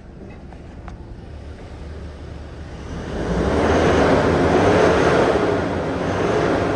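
Toyota Hilux diesel engine running, with its sound swelling into a louder rush about three seconds in and easing off near the end, as when the engine is revved.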